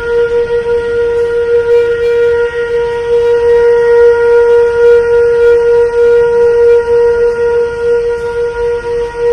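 Whistle of a Darjeeling Himalayan Railway steam locomotive, one long steady blast on a single note.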